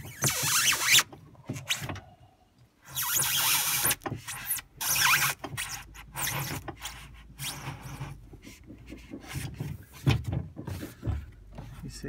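Knife blade sawing through a thick block of foam, squeaking and rubbing in uneven strokes, the longest ones near the start and about three seconds in, shorter strokes after.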